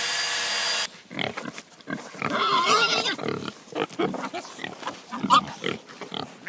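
A cordless plunge track saw running through a cut, stopping abruptly under a second in. Then a group of pigs grunting in short, irregular bursts, with a wavering squeal about two and a half seconds in.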